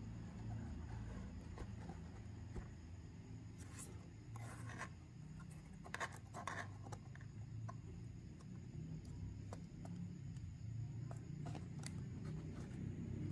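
A folded DJI Mavic Mini drone being handled into its padded carrying case: light rubbing and scraping of plastic against the case lining, with small clicks, clustered about four to seven seconds in and again near the end, over a steady low hum.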